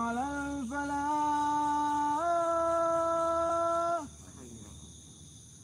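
A man's voice chanting the Islamic call to prayer (adhan). He sings one long drawn-out phrase, held on sustained notes that step up in pitch a few times, and stops about four seconds in.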